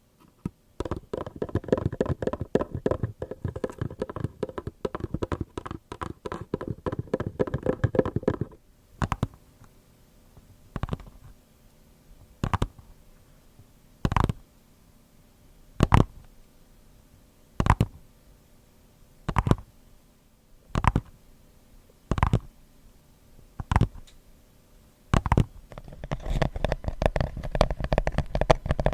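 Tapping and scratching on a cardboard box of plastic wrap: a fast, dense run of taps, then about a dozen single taps about a second and a half apart, and rapid tapping starts again near the end.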